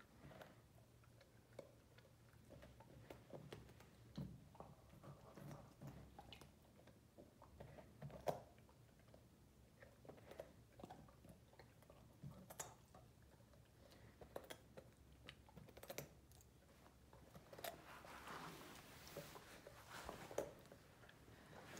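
Great Dane puppy chewing a raw carrot: faint, irregular crunches and wet clicks of teeth on carrot, with a denser stretch of crunching and rustling near the end.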